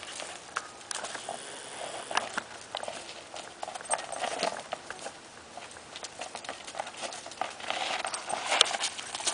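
A Cardigan Welsh corgi's paws running over dry dirt and fallen leaves: a quick, irregular patter of light scuffs and clicks, busiest near the middle and towards the end.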